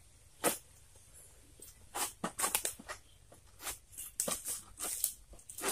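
Long-pole oil palm harvesting sickle (egrek) rasping against a palm frond stalk in a string of short, irregular cutting strokes.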